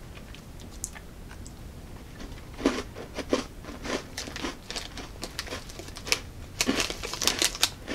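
A person chewing crunchy bite-sized brownie cookies: a run of irregular crunches that starts a couple of seconds in and comes thicker near the end.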